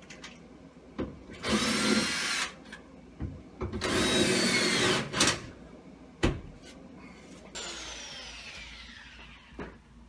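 Power drill driving screws into cement board: two bursts of the motor whining, each about a second long, with knocks and clicks between them. Near the end a long whine falls in pitch.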